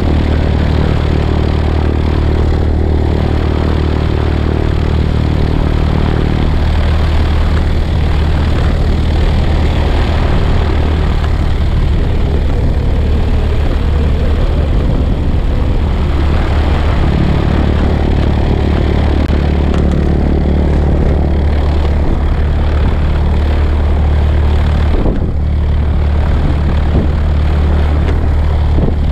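Piper Cherokee's piston engine and propeller running steadily, heard from a camera mounted on the tail stabilator, a constant low drone with a rushing noise over it.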